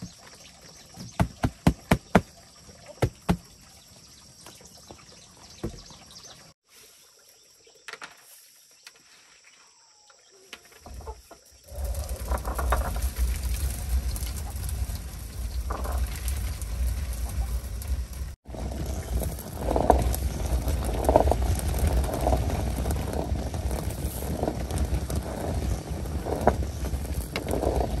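Two-piece stone hand mill grinding dried corn kernels: a continuous low, rough rumble of stone turning on stone that starts about twelve seconds in and grows in swells as the top stone goes round. Before it, a few light knocks and clatter of woven bamboo trays and baskets being handled.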